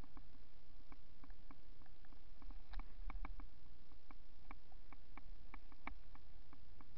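Irregular clicks and rattles, several a second, from a bicycle and its camera mount jolting over a bumpy sandy dirt track, over a low rolling rumble.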